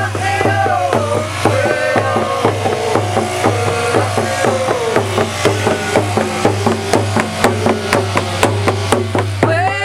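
A drum beaten in a steady, even rhythm of about three beats a second, with a man's voice singing over it. The singing grows strong again near the end.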